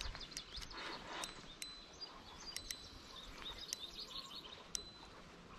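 Faint outdoor background with birds chirping and a scattering of light, irregular clicks.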